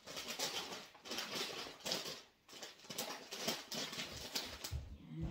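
Plastic grocery bags and snack packaging rustling and crinkling in irregular bursts as groceries are handled.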